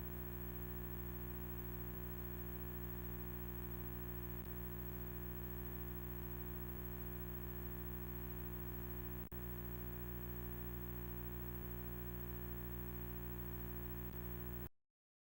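A steady electronic drone of many held tones over a low hum, unchanging throughout. It has a brief dropout about nine seconds in and cuts off suddenly near the end.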